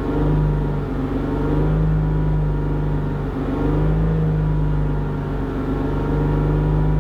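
BMW 328i E90's N52 straight-six held steady at about 3,000 rpm, its exhaust note coming through a Turner Motorsport muffler and resonator delete, straight stainless tubing in place of the factory muffler.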